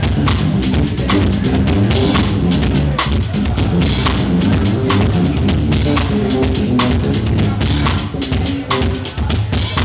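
Live drum kit playing a steady beat, with bass drum and snare strokes, alongside other instruments carrying pitched bass notes.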